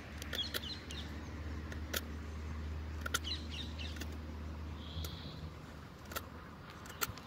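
Blade of an SRM 9019 folding knife whittling a wooden stick: short, crisp cuts as shavings are sliced off, spaced about a second apart. Birds chirp in the background.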